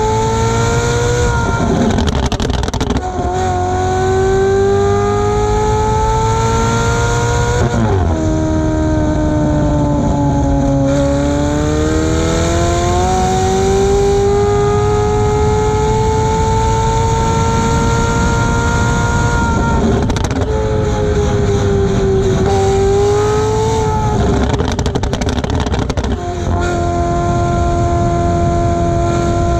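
McLaren 720S twin-turbo V8 with catless downpipes, ECU tune and X-pipe exhaust, pulling hard with the pitch climbing, then dropping at each shift or lift, several times over. Short pops and crackles break in at those shifts. Over the last few seconds it holds a steady engine speed.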